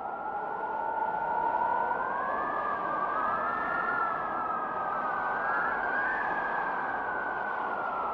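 Storm wind howling: a steady rush with a wavering whistle that slowly rises and falls in pitch, building over the first second.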